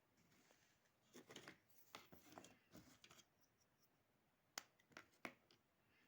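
Faint handling noises: rustling and scraping of small parts being worked by hand, then three sharp clicks close together near the end.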